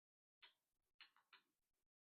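Faint clicks from picking an EVVA MCS magnetic-rotor lock, three small clicks in about a second, each with a short scraping tail: the rotor feedback the picker listens for.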